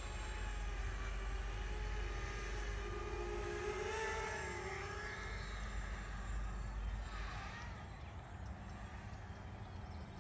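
ZMR 250 racing quadcopter's brushless motors and propellers whining, the pitch wavering up and down with the throttle, fading out about six seconds in.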